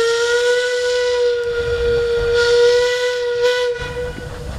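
Small steam tank locomotive's whistle giving one long, steady blast that cuts off about four seconds in, over the hiss of steam. After it stops, the low running sound of the approaching engine remains.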